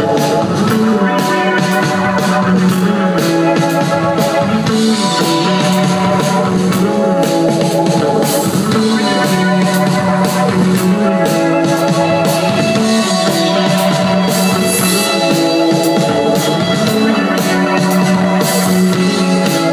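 Live psychedelic indie rock band playing: electric guitars, keyboard and drums, with a steady drum beat under a repeating low line that steps between a few notes.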